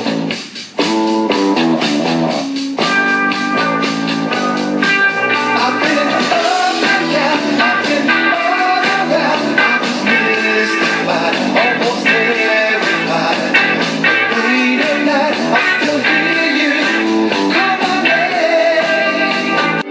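Rock music with guitar and a steady beat, dropping out briefly about half a second in.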